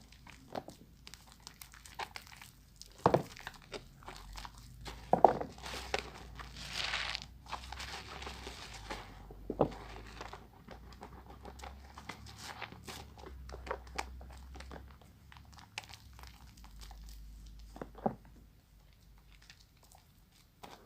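A wet bar of soap being lathered: squishing and crackling of foam, with scattered sharp snaps and a longer hissy rub a few seconds in.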